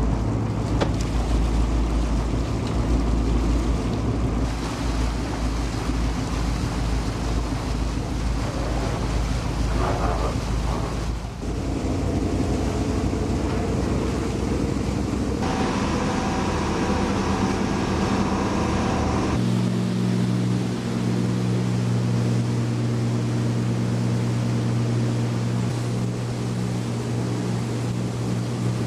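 Steady engine drone with wind noise, changing character abruptly several times as at edits; from about two-thirds of the way in, a steady low, even hum dominates.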